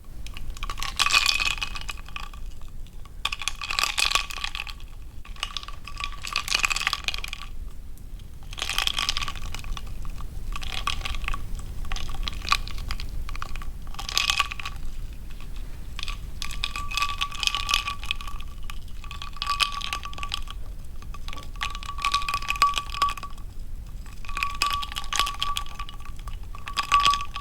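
Ice cubes clinking against a glass of water in repeated bouts a second or two long, about a dozen in all, the glass ringing with a clear pitch each time.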